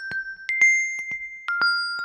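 Samsung Galaxy Watch4 chime tone: a melody of bright, bell-like mallet notes. A new note sounds about once a second, stepping up and then down in pitch, each struck twice in quick succession and followed by softer repeat taps while the earlier note rings on.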